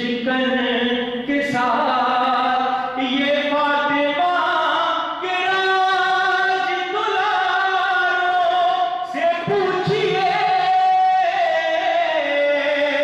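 A man singing unaccompanied into a microphone in a chanting style, holding long drawn-out notes that slide and bend between pitches.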